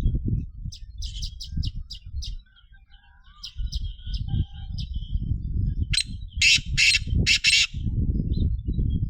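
A black francolin calling: a quick run of short, sharp notes, then about six seconds in a louder series of four harsh, grating notes. A heavy low rumble on the microphone runs underneath.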